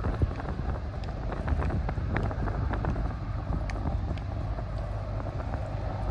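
Wind rumbling on the microphone, an uneven low rumble, with scattered faint clicks.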